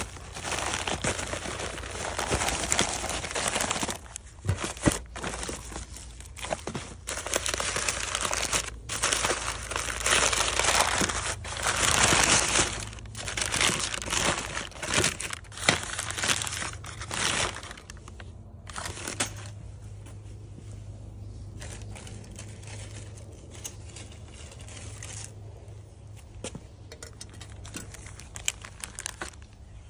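Plastic mailer bag and brown kraft packing paper crinkling as they are pulled open and off a coiled strap. The handling is busy for about the first eighteen seconds, then dies down to quieter rustles over a low steady hum.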